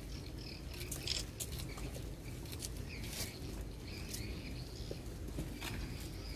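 Birds calling in short, scattered high chirps and clicks over a steady low rumble.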